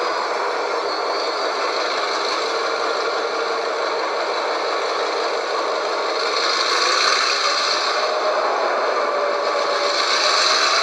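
HO-scale model freight train behind an R20 diesel locomotive model, running with a steady rattle and clatter of small wheels and mechanism on the track, and a faint tone that wavers in pitch.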